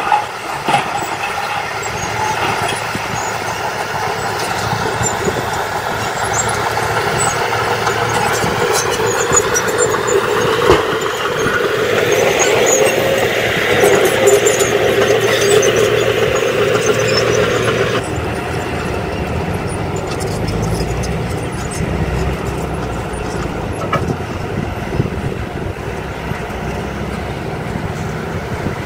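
Diesel engines of a tipping dump truck and a Komatsu crawler bulldozer running, with rock and soil sliding out of the truck bed. From about twelve seconds in a squeal rises over the engine as the dozer's steel tracks move while it pushes soil; after about eighteen seconds a lower, steady engine rumble goes on.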